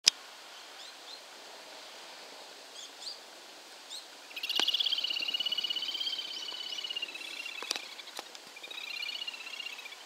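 A little grebe gives a long, rapid high trill starting about four seconds in and lasting some three seconds, then a shorter trill near the end. A few short high chirps come before it. There is a sharp click at the very start, and two faint clicks come between the trills.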